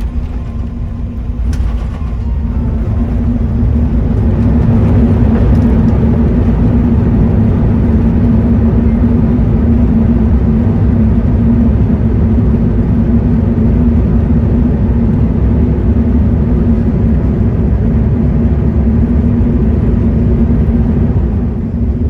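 Airbus A380's Rolls-Royce Trent 970 engines in reverse thrust on the landing roll, heard from inside the cabin. A loud, steady rumble builds over the first few seconds after a couple of knocks, holds, and falls away near the end as the reversers are stowed.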